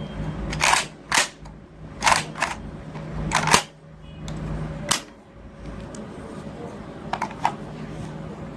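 Metallic clicks and clacks, mostly in pairs about half a second apart, as the action of a Darra-made AK-action rifle in an M4-style body is worked by hand. Two fainter clicks come near the end.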